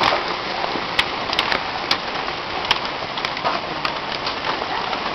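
Hailstorm: a steady dense hiss of falling hail and rain, with irregular sharp cracks of individual hailstones striking, roughly two a second.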